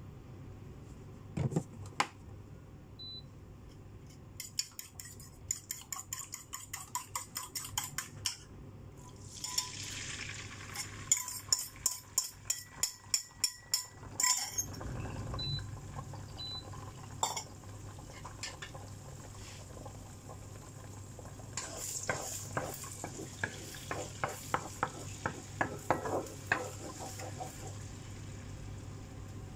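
Metal fork clicking and scraping against a bowl and a nonstick wok as raw egg is beaten and stirred, in quick runs of clicks. There is a brief hiss about a third of the way in.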